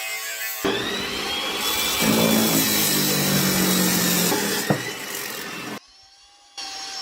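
Power tools working steel, heard in several short clips that cut abruptly from one to the next, with a sharp knock about two-thirds of the way in.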